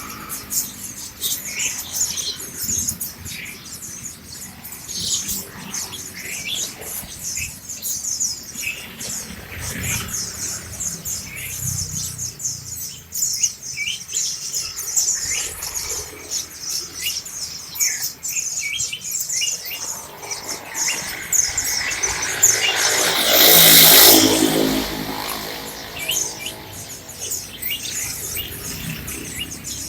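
A crowd of caged white-eyes (pleci) twittering with many rapid, high, overlapping chirps. About three-quarters of the way through, a louder sound swells up and fades away over a few seconds.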